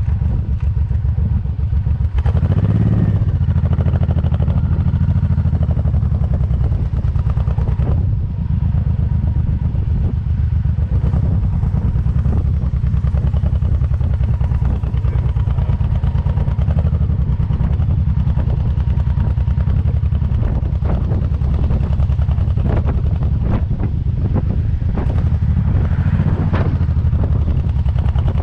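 Cruiser motorcycle's engine running steadily while under way, heard from the rider's seat. It gets louder about two seconds in, then holds an even pace.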